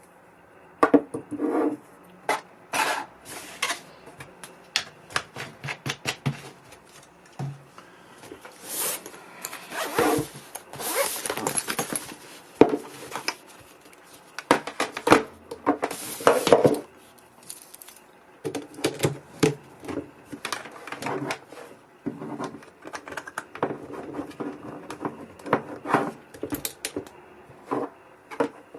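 Hands handling packaging and a small plastic gadget: irregular rustling, scraping and clicking, starting about a second in.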